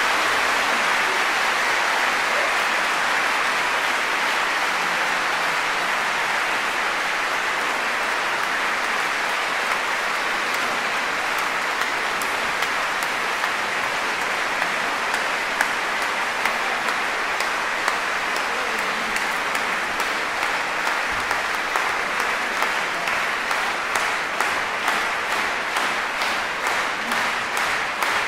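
Concert audience applauding. Near the end, the clapping falls into an even beat of about two claps a second.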